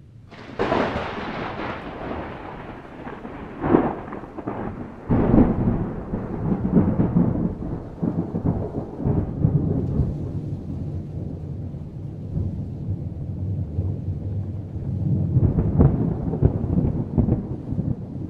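Thunder: a sudden crack about half a second in, then long rumbling, with further claps around four and five seconds in and again near the end.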